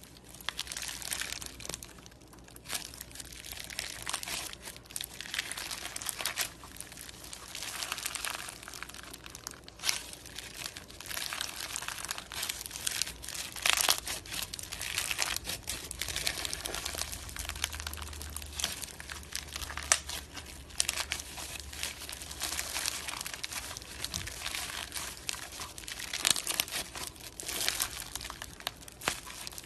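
Slime being squeezed and worked by hand, giving a continuous crackling, crinkling sound with frequent sharp pops.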